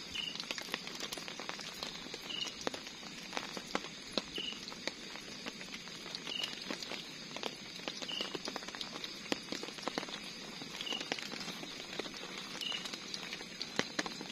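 Sausages frying in hot oil in a small camping pan, a steady sizzle with frequent small pops and crackles. A short high chirp repeats about every two seconds.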